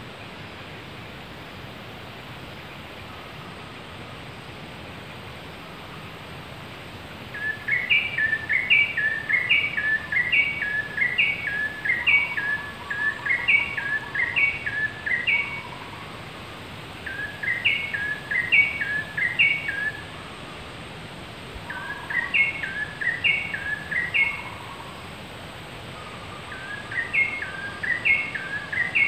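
A bird singing loud bouts of quick, stepped chirping notes, repeated phrase after phrase with short pauses between bouts, starting about seven seconds in over a steady forest hiss.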